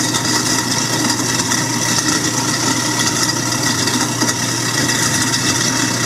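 Kitchen sink garbage disposal running steadily with tap water pouring into the drain, a steady motor hum under a rushing hiss.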